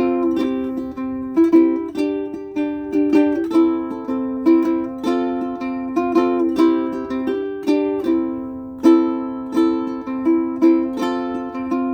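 aNueNue UC-110 Green Bird ukulele played solo: strummed and plucked notes in a simple repeating melody, each note ringing on after it is struck.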